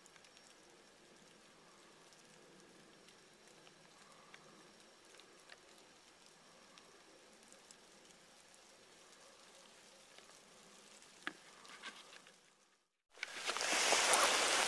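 Faint patter of light rain with scattered soft ticks of drops. Near the end, after a brief dropout, a much louder close rustling noise starts.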